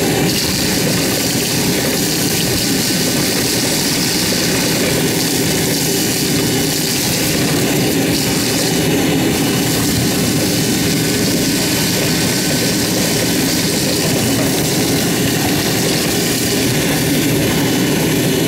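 Wet/dry shop vacuum running steadily with a loud rushing hiss, its hose sucking nesting debris out of the bottom of an AC condenser unit; the hiss shifts slightly now and then as the nozzle moves through the debris.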